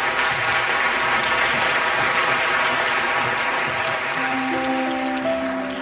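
An audience applauding a performer's entrance. About four seconds in, soft music with long held notes comes in under the clapping.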